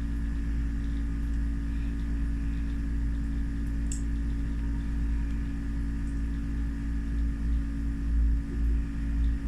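A steady hum of a running motor or appliance, several fixed tones over a low rumble, with one faint click about four seconds in.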